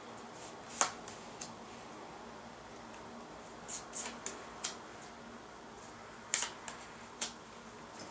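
Tarot cards being drawn from the deck and laid down on a wooden table: a scattering of sharp snaps and light taps, the sharpest about a second in.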